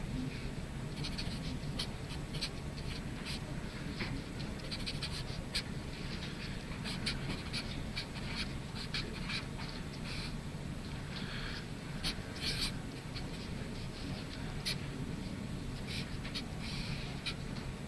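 Hand-drawing on a board: irregular scratchy pen strokes and small taps as a circuit diagram is drawn, over a steady low room hum.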